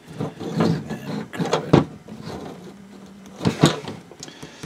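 Small wire cutters squeezing and pulling at a power cord's insulation to strip the wire by hand: rustling handling noise with a few sharp clicks. The loudest click comes about a third of the way in, and two more come close together near three-quarters.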